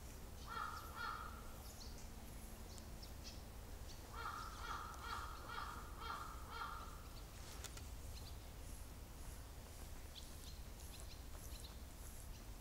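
A bird calling in two runs of harsh, quickly repeated notes: a short run about half a second in, and a longer one of about eight notes starting around four seconds.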